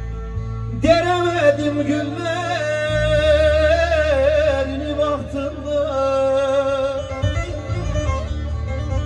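Bağlama (saz) playing a Turkish folk song, with a man's voice coming in about a second in and holding long, wavering notes until near the end, when the saz carries on alone over a steady low bass.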